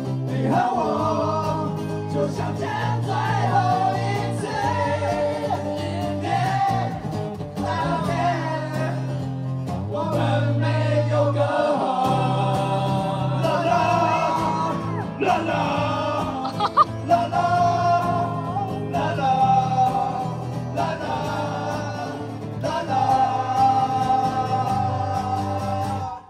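Several men singing a song together in chorus over a strummed acoustic guitar, performed live.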